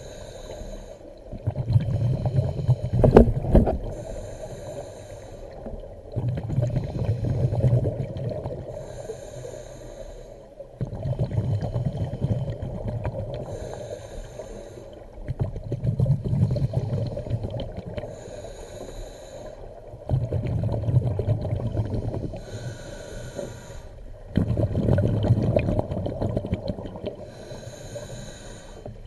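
Scuba diver breathing through a regulator, underwater: a short hiss on each inhale, then a longer rumble of exhaled bubbles, repeating about every four and a half seconds. A sharp knock about three seconds in is the loudest sound.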